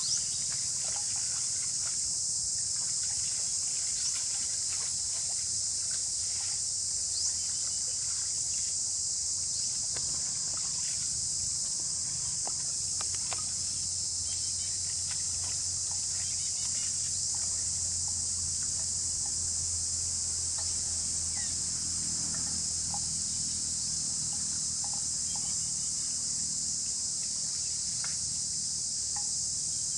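Steady, high-pitched chorus of insects, with a low hum underneath that swells in the middle and a few faint clicks.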